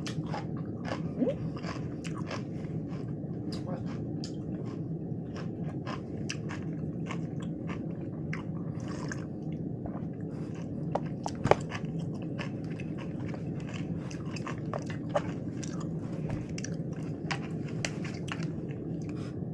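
Chewing crunchy lettuce wraps with raw cucumber and pepper slices: a steady run of crunches, one louder about halfway through, over a steady low hum.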